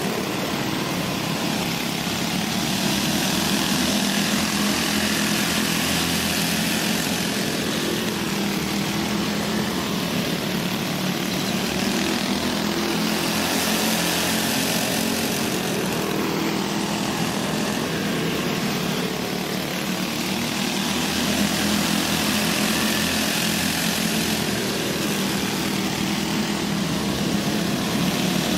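Several small go-kart engines racing together on a dirt oval, a continuous buzzing drone that swells and fades every several seconds as the pack comes around and passes.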